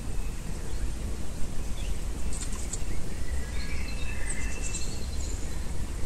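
Small birds chirping and whistling a few short calls from about two seconds in, over a steady low outdoor rumble.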